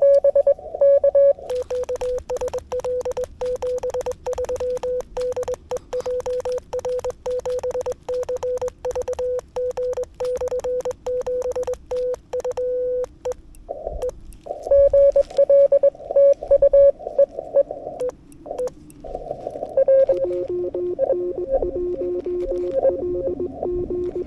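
Morse code (CW) tones from an amateur radio transceiver on 40 m, keyed dots and dashes at around 500–550 Hz. A quieter stretch with clicking hiss runs through the first half. Near the end a second signal at a lower pitch keys alongside the first.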